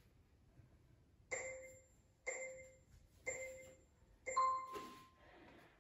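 Workout-app interval timer sounding a countdown: four chime tones about a second apart, each dying away, the fourth longer with an added tone, marking the start of the next work interval.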